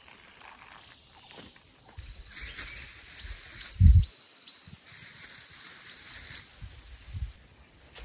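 Insect chirping outdoors in short trilled bursts, four in quick succession and then two more. A dull low thump about four seconds in is the loudest sound.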